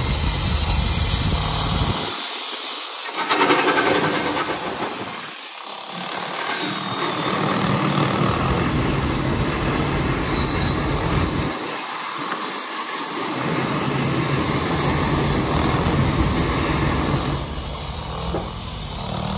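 Bucyrus-Erie 50-B steam shovel working as it digs and swings, its steam engines running with a steady hiss of steam and mechanical clatter.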